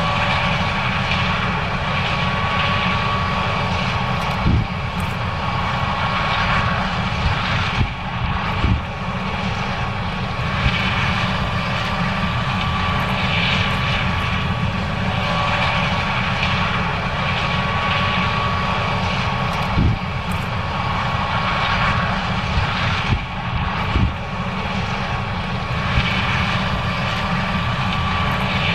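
John Deere S670 combine running under load while harvesting corn: engine and threshing machinery make a steady heavy drone with a constant high whine. A few short knocks are scattered through.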